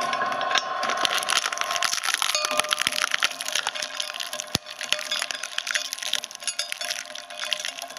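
Twin-shaft blade shredder crunching gumballs and their plastic bag: a dense, irregular run of sharp cracks and crunches as the candy shells break between the blades.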